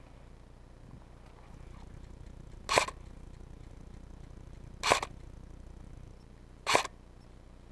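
An airsoft rifle firing three single shots, each a short sharp pop, about two seconds apart.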